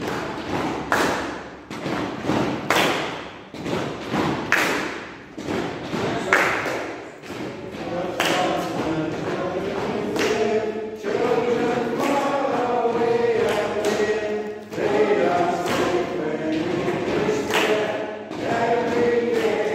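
A group of people singing together, with sharp thumps keeping time, about one every two seconds at first and more often later.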